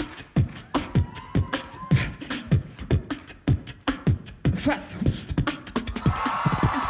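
Human beatboxing into a microphone: a mouth-made drum kit of deep, falling kick-drum thumps and sharp snare and hi-hat clicks in a steady beat. Near the end a dense, steady wash of sound rises under the beat.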